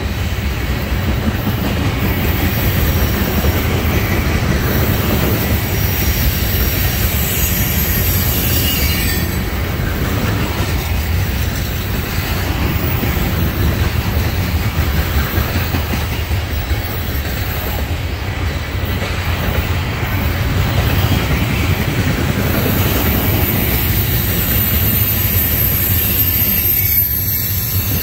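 Covered gondola cars of a loaded trash train rolling past: a steady, loud rumble and clatter of steel wheels on the rails, with a high wheel squeal at times.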